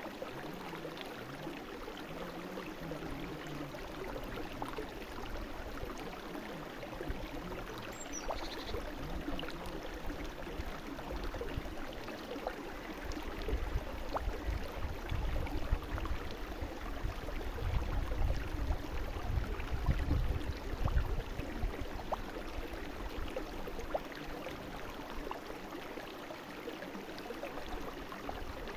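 A brook running over stones: a steady rush of water with many small splashes and trickles, and a low rumble swelling in the middle. One brief high falling chirp about eight seconds in.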